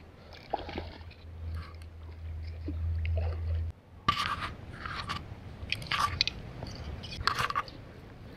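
Crunching and scraping handling noise close to the microphone, from clothing and dry brush rubbing against a body-worn camera. A low rumble gives way after a cut a little under four seconds in to a string of sharp crunches.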